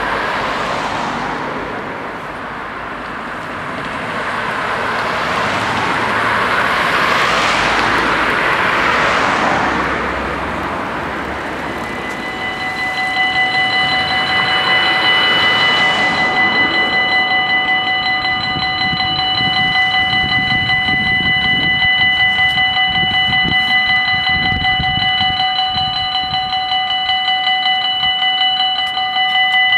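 Cars and a van passing over a level crossing. About twelve seconds in, the crossing's electronic warning bells start and keep ringing with a fast, repeated high tone, warning that a train is approaching while the barriers come down.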